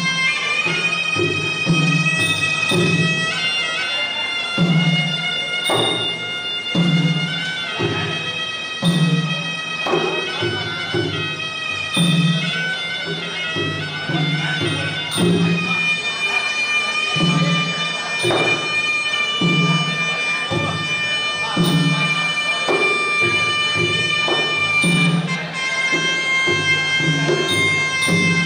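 Traditional Khmer boxing ring music: a reedy sralai oboe plays a sustained, wavering melody over a drum beat about once a second. This is the music that accompanies the fighters' pre-fight ritual.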